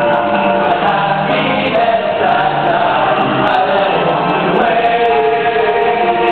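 All-male show choir singing in harmony, holding long chords that shift every second or two.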